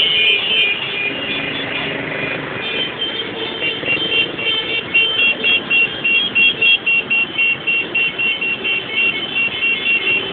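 Horns honking in a fast rhythmic pattern, about two or three short blasts a second, over the steady noise of a large group of motorcycles in traffic.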